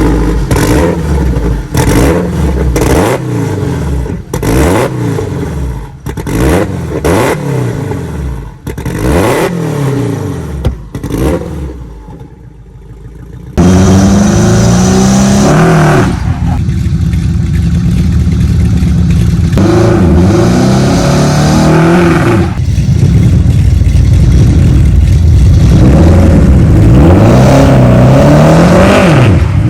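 Turbocharged Honda-swapped Toyota MR2 engine revved in quick repeated blips, rising and falling about once a second. About halfway through it jumps suddenly to full loudness and pulls through climbing revs in several runs, the last a long steady rise.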